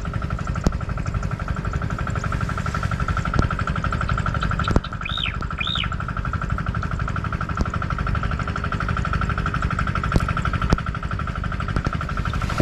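Outdoor ambience: a steady, fast-pulsing high buzz over a low rumble, with a few faint clicks. About five seconds in, a bird gives two quick arched chirps.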